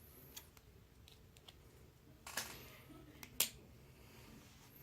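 Faint small-object handling sounds: a few short clicks and taps, two sharper ones a little past the middle.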